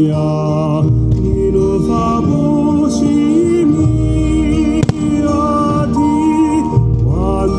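Music with a sung vocal line, its long held notes wavering with vibrato, and a single sharp crack about five seconds in.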